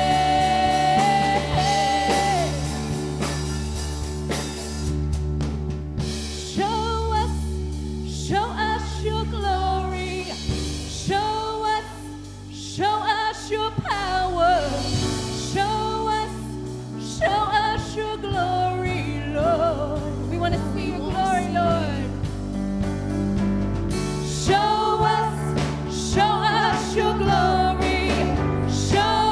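Live worship music: a voice singing a praise song over band accompaniment with held bass notes.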